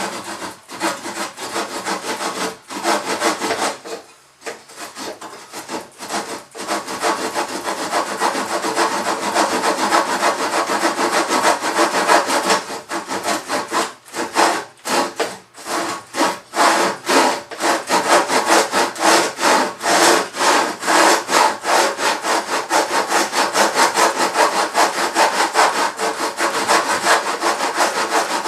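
Hand saw cutting through wood in quick back-and-forth strokes, with the rasp of the teeth on each stroke. The sawing stops briefly about four seconds in and again around the middle, then carries on steadily.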